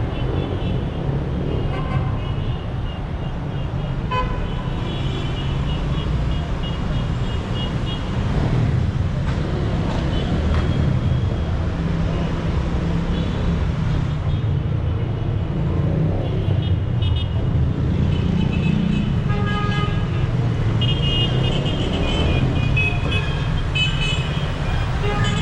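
Busy city-street traffic: a steady rumble of engines and tyres, with many short vehicle horn honks, thickest near the end.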